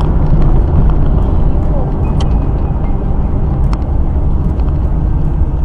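Steady low rumble of a car driving at road speed, heard from inside the cabin through a dashcam microphone, with a few faint clicks.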